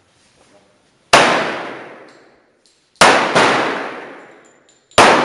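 .45 ACP pistol shots: three loud reports about two seconds apart, with a second shot close behind the middle one. Each echoes on for about a second under the covered firing line.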